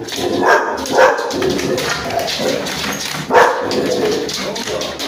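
American Staffordshire terrier barking, with three louder barks: about half a second in, at about one second, and a little after three seconds.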